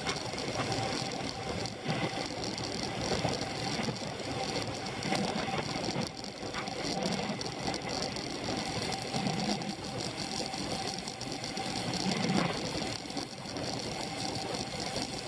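Road racing bicycle in motion: a rapid, steady mechanical rattle and whir carried into the handlebar-mounted camera, with wind and road noise.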